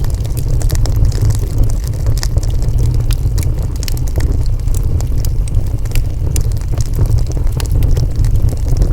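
Burning wood fire crackling, with frequent short pops and snaps over a steady low rumble.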